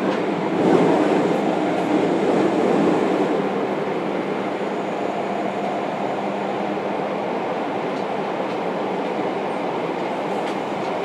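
Running noise inside a JR Kyushu 303 series electric train's motor car with Hitachi IGBT VVVF control, heard while under way. It is a steady rumble of wheels and running gear with a faint even hum, swelling louder about a second in and then settling to a constant level.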